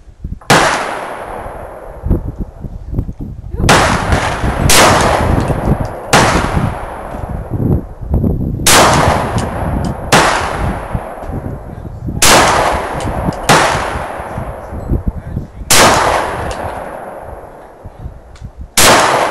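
Ten shots from a Sig Sauer 9mm pistol, fired one at a time at a slow, uneven pace of roughly one to two and a half seconds apart. Each shot is followed by a long echo that dies away over a second or more.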